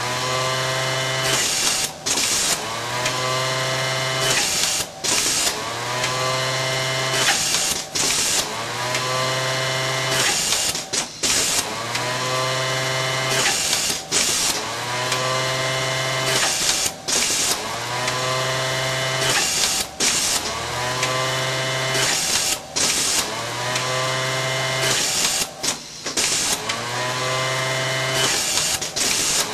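Industrial sewing machine of an automatic bottom band setting workstation running in repeated short sew cycles, about one every three seconds. Each cycle starts with a rising whine as the motor speeds up, holds a steady pitch while sewing, and stops briefly before the next garment is sewn.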